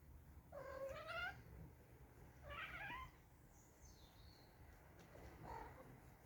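Domestic cat making drawn-out meows and yowls while squabbling with another cat. There are three calls: a long one that rises slightly about half a second in, a shorter one near the middle, and a faint one near the end.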